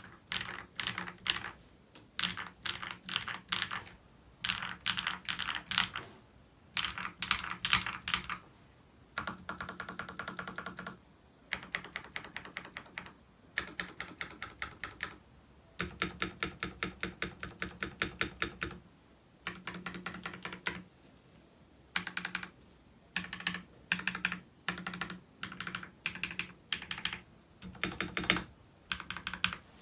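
Typing on a mechanical keyboard with Akko Vintage White linear switches (Rakk Pluma board), in bursts of fast keystrokes broken by short pauses, with one longer unbroken run about halfway through.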